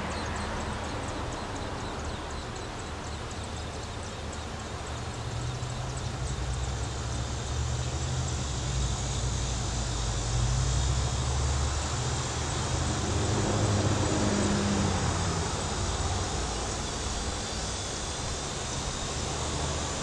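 Low engine rumble of passing motor traffic, swelling about halfway through with a hum on top, then easing off.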